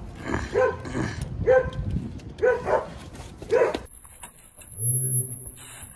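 A dog barking: four short barks about a second apart.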